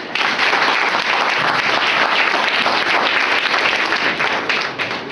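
An audience applauding: many hands clapping together in a dense, steady patter that dies away near the end.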